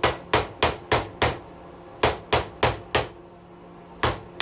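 Hammer blows on metal, knocking a brass bearing out of an electric weed whacker's motor: a run of five quick strikes, a short pause, four more, then a single strike near the end.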